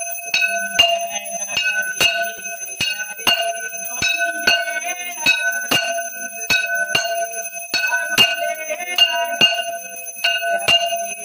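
Brass temple bell rung steadily during aarti, about two strikes a second, each strike ringing on into the next.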